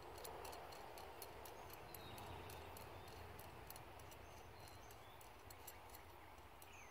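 Near silence: faint outdoor background hiss with light, irregular high-pitched ticking.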